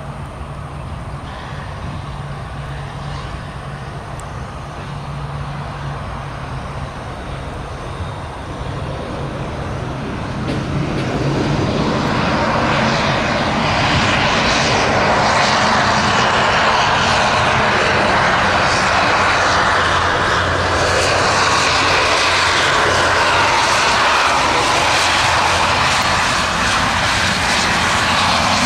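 Jet airliner engines passing close: a low, steady sound grows sharply louder about twelve seconds in, then holds loud and steady.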